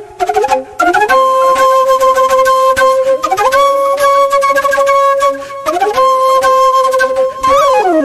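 Instrumental background music led by a flute playing long held notes that slide up and down in pitch, with a dip near the end.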